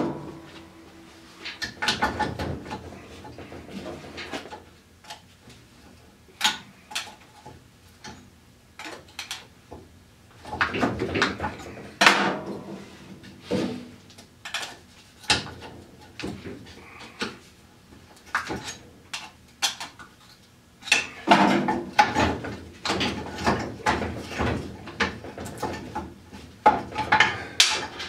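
Irregular metal clanks, knocks and scraping in clusters with pauses between, as the rear axle of a Polaris Scrambler ATV is worked and pried out of its spread bearing carrier.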